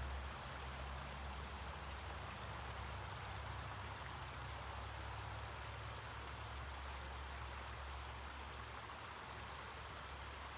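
Water trickling and running in a backyard garden pond, a steady even splashing hiss. A low steady rumble sits underneath and eases off near the end.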